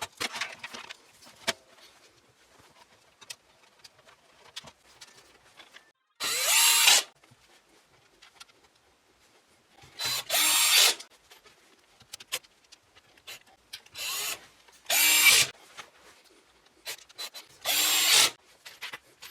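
Small electric screwdriver driving screws, in about five short runs of under a second each, with light clicks and handling sounds of parts between them.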